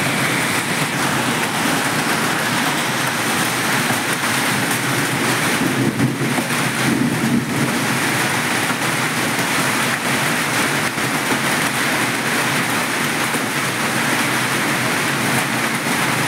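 Heavy hailstorm: hailstones pelting down in a loud, steady, dense din.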